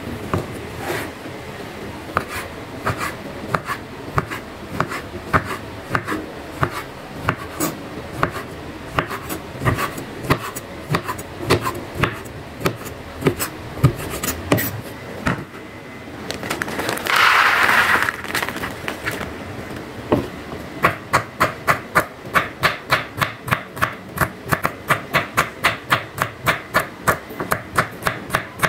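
Kitchen knife slicing tempeh into thin sticks on a wooden cutting board: irregular taps as the blade strikes the board. A short burst of noise comes about two-thirds of the way in. After that, quick even knife taps slicing garlic cloves, about three to four a second.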